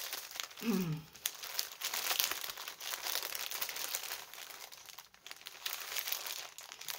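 Packaging crinkling and rustling as it is handled, in irregular bursts throughout.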